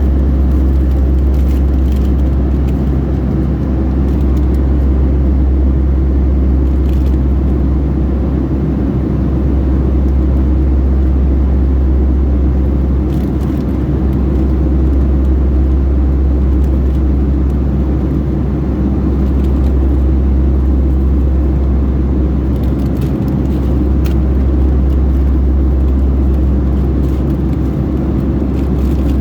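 Steady loud drone of jet engines and airflow inside the passenger cabin of a Boeing 757-300 in flight: a deep, even rumble with no change in pitch.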